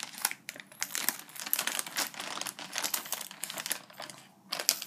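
Plastic mailing bag crinkling as it is cut open along its sealed end with small scissors, with rapid rustles and small clicks.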